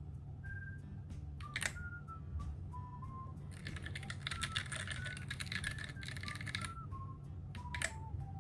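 Keys of a Huano red-switch mechanical keyboard being pressed: a single keystroke, then about three seconds of rapid typing, then another keystroke near the end. Background music with a simple high melody plays under it.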